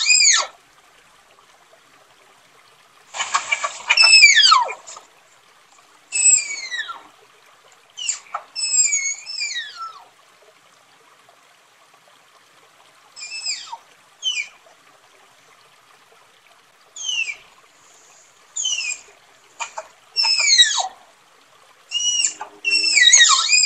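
Tapir calling with high-pitched, bird-like whistling squeals, each one sliding down in pitch. The calls come singly or in clusters of two or three, with quiet gaps of a second or more between them.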